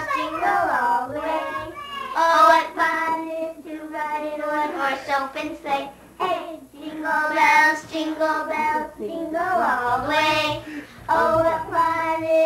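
Child's voice singing a song, holding notes steady for about a second at a time between short breaths.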